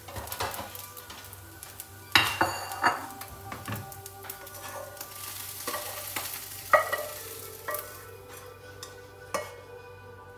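Spatula scraping and knocking against a frying pan as fried rice is stirred, then scraped out of the pan into a bowl, with sizzling. There are repeated sharp clinks, the loudest about two seconds in and again near seven seconds.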